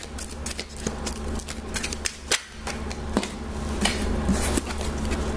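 A deck of oracle cards being shuffled by hand, the cards knocking together in a quick, irregular series of sharp clicks and taps, over a steady low hum.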